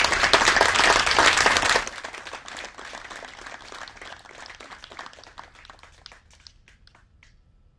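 Applause from a small seated audience: loud, dense clapping for about two seconds, then dying away to scattered claps that stop near the end.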